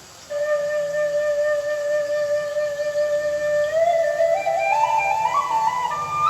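Thai khlui bamboo flute playing a melody: it comes in sharply with one long held note, then climbs step by step in a quick upward run in the last couple of seconds.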